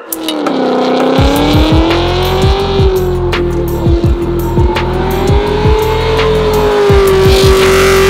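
A drift car's engine held at high revs through a long slide, its pitch wavering only slightly, with tyres squealing. Background music with a thumping bass beat plays over it.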